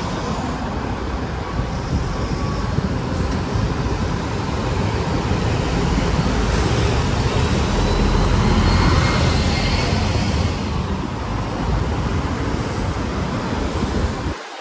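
Diesel city buses and cars passing on a busy street, a steady mix of engine rumble and tyre noise. It swells loudest a little past halfway as a bus drives close by, then cuts off suddenly near the end.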